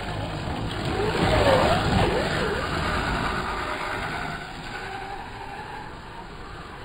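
A 1/4-scale RC motocross bike revving as it rides on dirt, its pitch rising and falling. The sound is loudest about two seconds in and then fades as the bike moves away.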